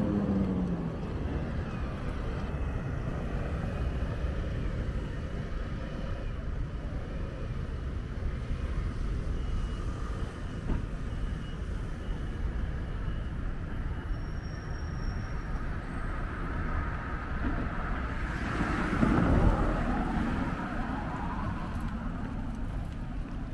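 Street traffic: a steady rumble of passing vehicles, with one vehicle passing close about three-quarters of the way through, its pitch rising then falling as it goes by.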